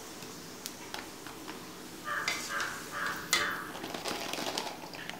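Faint steady sizzle of puris deep-frying in hot oil, with a few sharp clicks and, about two seconds in, a short stretch of metallic scraping and clinking as a steel slotted skimmer lifts the puris out against the steel pan.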